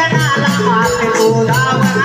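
Marathi folk devotional song (gan) of a jakhadi troupe: a melody with wavering voice-like lines over a steady, rhythmic rattling percussion beat.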